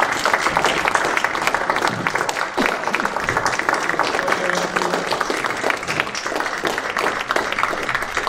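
An audience in a meeting room applauding: dense, steady clapping from many hands.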